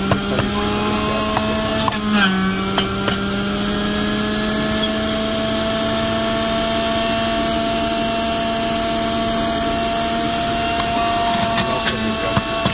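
Electric juicer motor running with a steady hum; its pitch dips briefly about two seconds in and again slightly near the end as produce is pushed down the feed tube and the motor takes the load, with a few crunching clicks at those moments.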